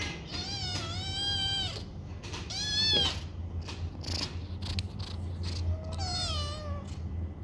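Kitten meowing: a long call at the start, a short one about two and a half seconds in, and another near the end, each rising and then falling in pitch.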